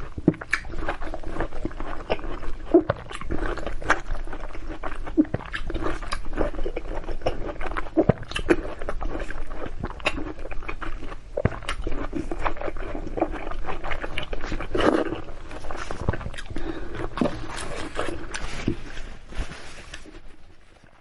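Close-miked biting and chewing of zucchini: wet mouth sounds with frequent sharp clicks and smacks, fading away near the end.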